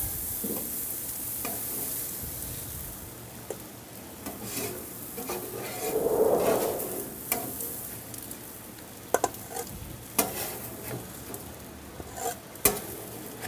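Egg roll filling of shredded cabbage and ground chicken sizzling on a flat-top griddle while metal spatulas stir and scrape it, with sharp clicks of spatula on metal as the filling is scooped into a bowl in the second half.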